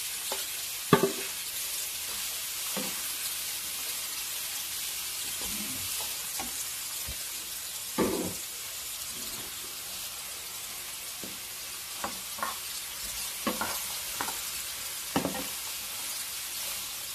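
Broccoli, carrots and mushrooms sizzling in hot olive oil in a nonstick frying pan with shrimp, a steady hiss. A spatula stirs them, and the bowl and spatula knock against the pan now and then. The sharpest knock comes about a second in, as the bowl is emptied, and several more follow in the last few seconds.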